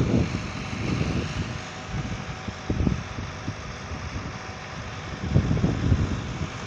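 A concrete pump truck's diesel engine running steadily, with wind buffeting the microphone in irregular low gusts.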